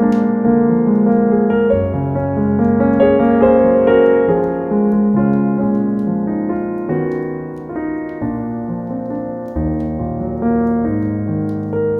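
Instrumental piano music: a slow melody over held chords, with notes ringing on and changing about once a second.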